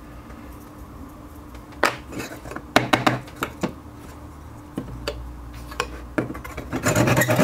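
Small cut pieces of hardwood and hand tools being handled and set down on a work surface: scattered sharp knocks and clacks, getting busier near the end.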